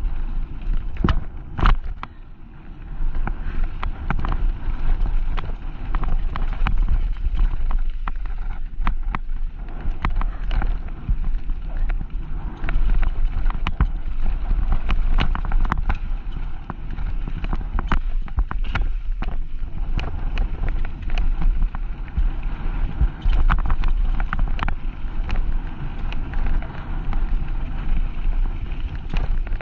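Mountain bike descending a gravelly bike-park trail: tyres crunching over loose gravel and the bike rattling with frequent sharp knocks over bumps, under a steady low wind rumble on the microphone.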